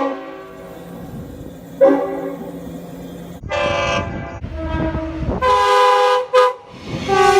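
Train horns sounding several separate blasts, each a chord of several notes, over the low rumble of a train: a short toot about 2 seconds in, then longer blasts from about halfway, one broken by a quick double toot near the end.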